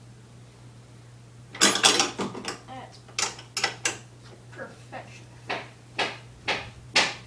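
Lawnmower parts and fasteners being handled and tightened during assembly: a burst of clattering about two seconds in, then a string of single sharp clicks and knocks, the last few about half a second apart.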